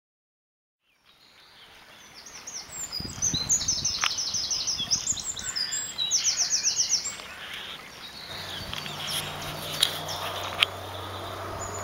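Songbirds singing, fading in after about a second, with loud, rapid, high trills in the middle. A steady low hum joins later, along with a few sharp clicks near the end.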